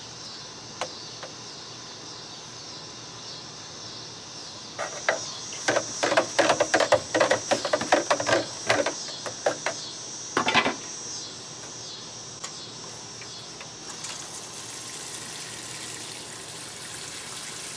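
A run of sloshing and knocking in a plastic watering can as liquid fish fertilizer is mixed into the water, lasting several seconds. After that comes a soft, steady hiss of water sprinkling from the can's rose onto a potted tomato plant. Insects chirr steadily in the background.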